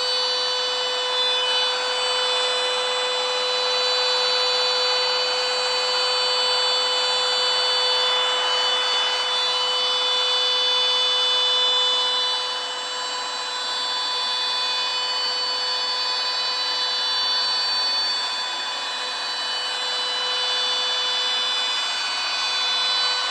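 CNC router cutting: the spindle's steady high-pitched whine over the continuous rasp of the bit working the material, a little quieter from about halfway through.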